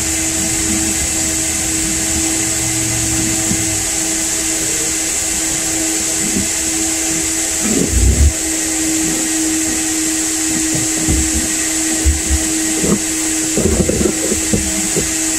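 Coin-operated car-wash vacuum running steadily with a high hiss and a constant hum. Dull thumps and knocks come about eight seconds in and several times near the end as the hose and nozzle work over the car's interior.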